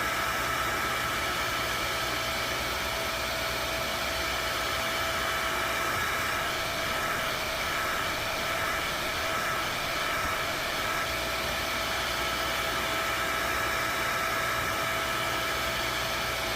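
Foley bedknife grinder running through its auto-infeed program: a steady motor whine over a constant hiss, with a low hum that fades for several seconds in the middle.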